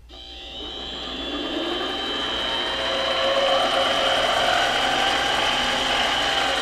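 Central Machinery 7x10 mini lathe running under power: the motor and headstock gears spin the three-jaw chuck up as the speed knob is turned, the sound growing louder over the first few seconds and then holding steady at speed, with a high whine over the mechanical noise.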